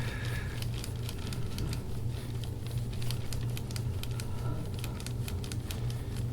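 Deep-tissue massage of the back with an elbow: soft, irregular rubbing and light crackling of skin and fabric against the treatment table, over a steady low hum.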